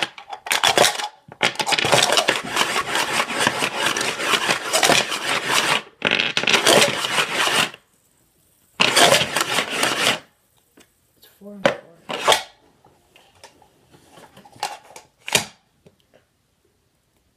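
Dice rattling and clattering inside a plastic cup swirled on a table top during dice stacking: one long spell of about seven seconds, a shorter spell after a pause, then a few single sharp clicks as the cup comes down and the dice settle into a stack.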